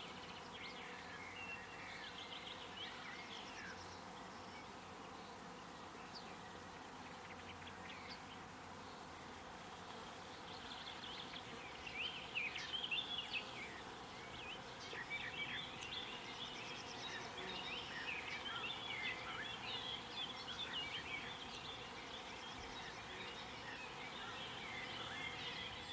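Field ambience: a steady insect buzz with many short, high chirps over it, sparse at first and busier from about halfway through.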